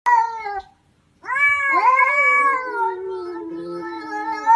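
Domestic cat yowling: a short falling call, a pause of about half a second, then one long drawn-out wail that rises, then slowly sinks. It is a territorial threat at another cat.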